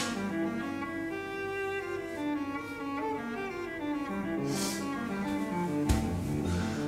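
Background music with slow, held low string notes, and a single sharp knock about six seconds in.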